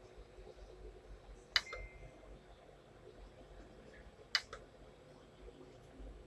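Two sharp clicks about three seconds apart, the first followed by a short high beep, over a faint steady hum.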